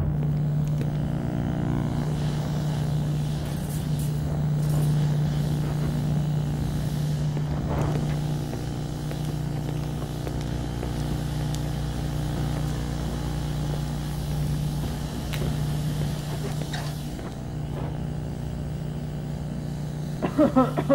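Steady low machine hum that holds one pitch throughout, with a few faint clicks over it.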